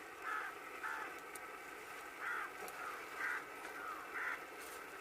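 A bird calling, five short calls spread across the few seconds, over a low steady background hiss.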